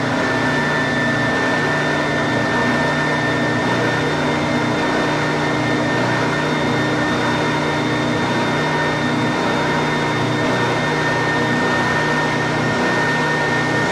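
WEN 6523 oscillating belt and spindle sander running steadily with no workpiece: an electric motor hum with a steady whine and a slow, regular pulsing in the low hum. The sanding belt is fitted and its tracking has been over-tightened, so the belt is walking up the drum.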